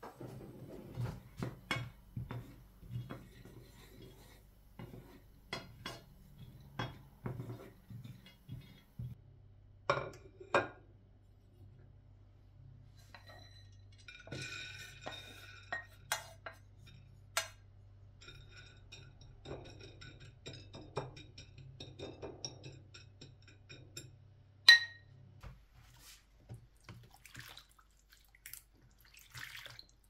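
Pine nuts being stirred as they toast in a nonstick frying pan: a wooden spatula scrapes and taps the pan and the nuts rattle, over a low steady hum. Later the nuts are scraped off the pan onto a plate. Near the end a short sharp beep sounds, and a moment later the hum stops.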